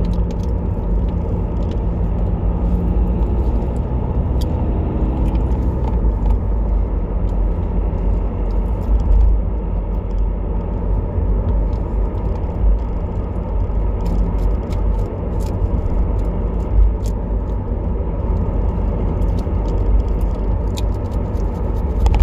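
Car cabin noise while driving: a steady low rumble of engine and road, heard from inside the car, with a steady hum for the first six seconds or so and a few faint clicks.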